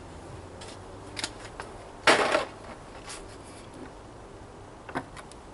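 Small handling sounds of plastic packaging and a model locomotive on a workbench: a few light clicks, with a short scratchy rustle about two seconds in that is the loudest sound.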